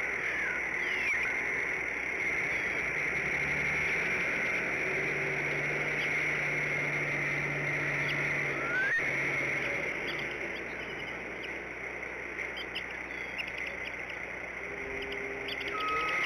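Outdoor nest ambience: a steady hiss with a few short bird chirps, and a faint low hum from a few seconds in until about ten seconds.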